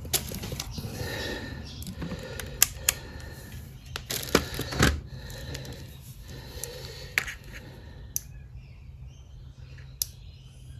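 Scattered clicks and light knocks of small hard objects being handled, irregular and heaviest in the first half, over a steady low hum.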